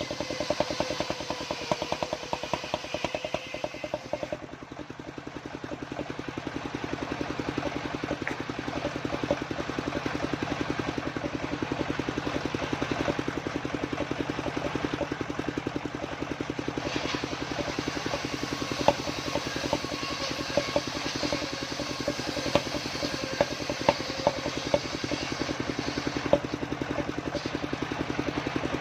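Homemade circular saw running steadily on its engine while sawing waru wood, with a rapid, even pulse. A high-pitched whine drops away about four seconds in, and a brighter cutting noise with scattered sharp clicks builds up again later.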